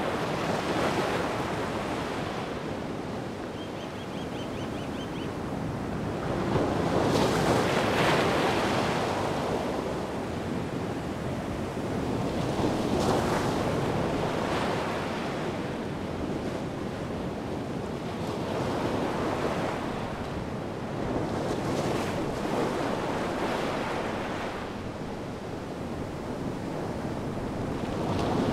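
Atlantic surf: waves breaking and washing in, the noise swelling and fading every five to seven seconds, with some wind.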